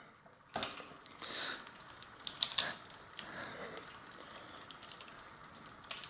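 Ratchet wrench clicking in quick runs of light clicks as it unscrews a bicycle crank bolt.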